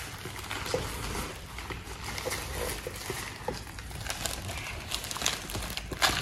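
Clear protective plastic film being peeled off an acrylic diffuser plate: a soft, continuous crackling with small clicks. About six seconds in there is a sharp, louder crinkle as the peeled film is bunched up.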